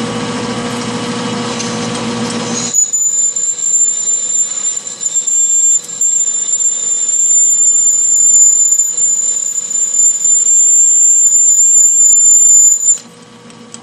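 1-inch drill bit cutting into stainless steel on a metal lathe with flood coolant: a loud, steady high-pitched squeal starts about three seconds in and cuts off suddenly near the end. Before the squeal, the lathe's steady machine hum.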